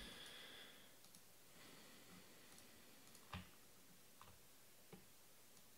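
Near silence with a few faint, short clicks, the clearest a little over three seconds in.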